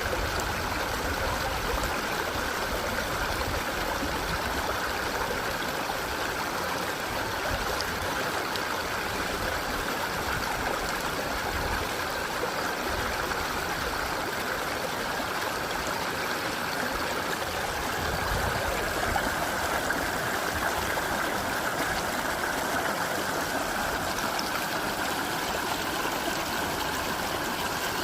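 Mountain stream rushing over rocks, a steady, even flow of water with no break.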